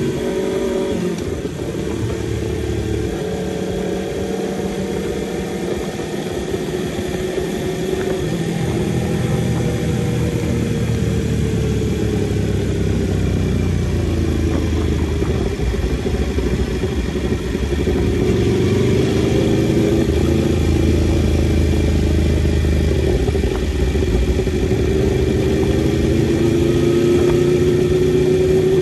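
Onboard sound of a 2016 Aprilia RSV4 RR's V4 engine being ridden in first and then second gear, its revs rising and falling with the throttle. It gets louder in the second half, with the revs climbing near the end.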